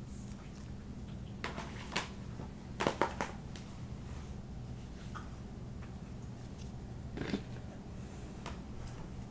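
Light clicks and knocks of embroidery floss and plastic storage bins being handled: a couple of taps, a quick cluster about three seconds in, and one more near the end, over a steady low hum.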